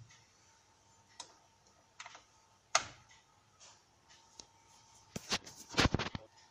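Clicks and taps on a laptop's keys and touchpad: single clicks spaced about a second apart, then a quicker run of louder taps near the end.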